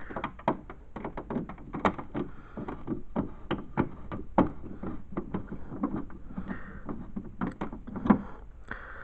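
A run of irregular clicks, knocks and thuds, a few a second and of uneven loudness, like things being handled and moved.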